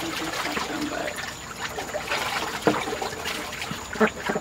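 Chickens and ducks feeding in a coop: a dense patter of quick pecking and dabbling clicks, with a few short low calls and a couple of sharper knocks, one a little over halfway and one near the end.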